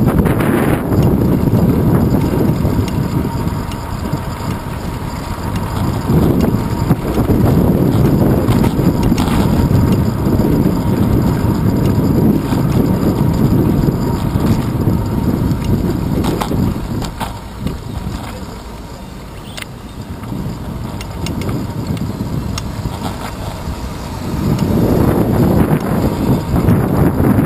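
Wind buffeting the microphone of a bicycle's handlebar-mounted camera, mixed with road rumble from the ride. It eases off twice, where the bike slows, and rises again near the end.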